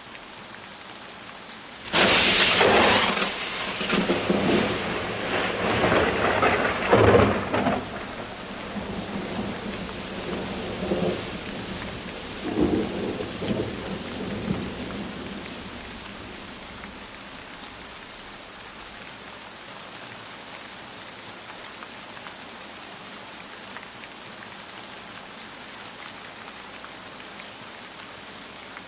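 Steady rain with a thunderclap about two seconds in: a sudden loud crack followed by rumbling that fades over the next dozen seconds, leaving the rain alone.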